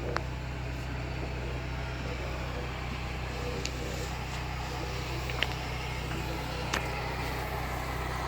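Power vacuum for duct and dryer-vent cleaning running steadily with a low hum and rush of air, with a few short sharp clicks about three and a half, five and a half and seven seconds in.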